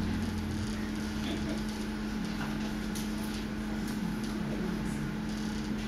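Room tone of a hall through a microphone: a steady low hum over an even background hiss, with a few faint short ticks.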